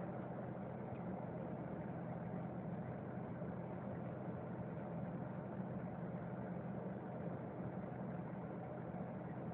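MAN TGA 410 truck's straight-six diesel running steadily on the move, its low drone mixed with road noise as heard from inside the cab.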